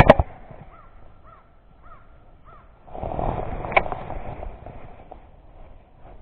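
A bird calling four times in short, evenly spaced notes, after a sharp click at the start; a second or so of rustling noise with another click follows.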